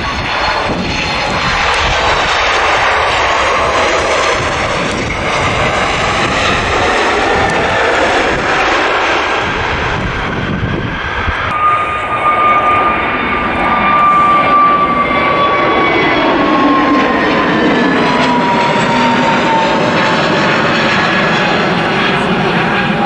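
Turbofan engines of a narrow-body jet airliner passing close by, a dense steady jet noise. In the second half a high engine whine slowly falls in pitch as the aircraft goes by.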